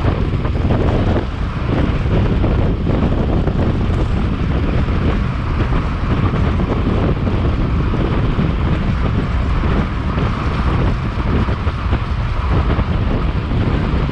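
Wind buffeting the microphone: a loud, steady low rush that flutters in level.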